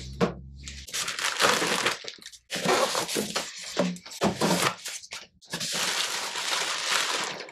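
Crinkling plastic wrapping and rustling cardboard packaging being handled, in several bursts of a second or two.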